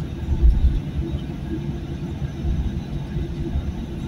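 Cabin rumble of a Boeing 737-900 taxiing, the landing gear rolling over the taxiway with a steady engine hum; the low rumble swells unevenly with bumps in the surface.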